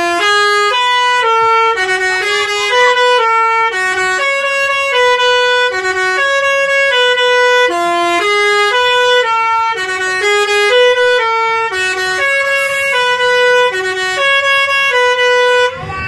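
Bus telolet 'basuri' musical horn playing a fast tune of clear held notes, about two or three a second, stepping up and down in pitch; it is loud and cuts off sharply near the end.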